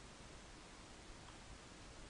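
Near silence: a steady faint hiss, with one faint tick about a second in.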